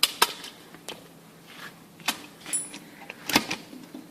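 Sharp, separate clicks and small metallic knocks of hardware being handled and fitted: a lock and rivets set against an aluminium window guide, a few irregular taps with a cluster near the end.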